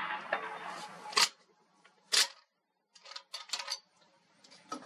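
Sharp mechanical clicks and clacks. Two louder clacks come about a second apart, then a quick run of lighter clicks, with more clicks near the end. A steady hiss underneath cuts off about a second in.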